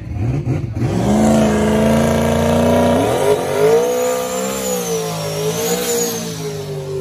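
Drag car's engine doing a burnout: it revs up about a second in and is then held at high revs while the rear tyres spin, the pitch stepping up once and wavering. A faint high whistle rises and falls over the second half.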